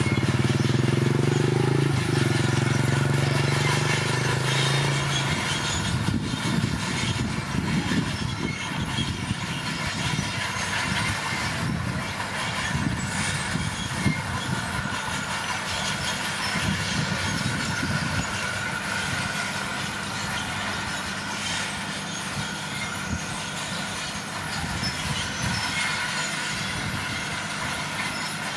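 Komatsu D41P crawler dozer working: its diesel engine running with a steady drone for the first five seconds or so, then a rougher, uneven rumble with the clatter and squeal of its steel tracks as it moves and pushes.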